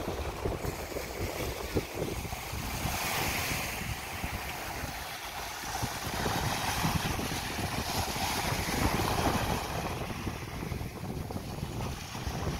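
Small sea waves breaking and washing up a sandy shore, the surf swelling and easing in slow surges, with wind buffeting the microphone.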